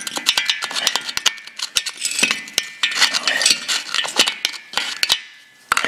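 Metal digging rod scraping and picking at the corrosion crust in a Volkswagen cylinder head's combustion chamber: rapid, irregular metallic clicks and scrapes. They pause briefly about five seconds in, then one more click comes.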